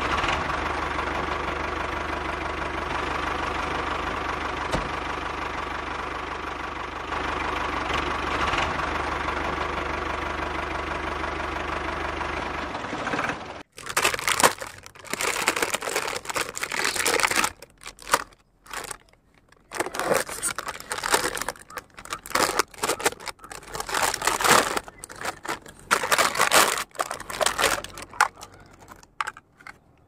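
A steady engine-like drone that cuts off abruptly about halfway through, followed by irregular crinkling and rustling of a plastic bag as a toy truck is unwrapped.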